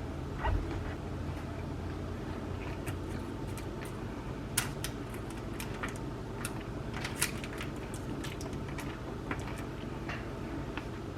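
Two spoons tapping and clicking irregularly as sticky cereal clusters are scooped and pushed off onto a parchment-lined pan, over a steady low hum.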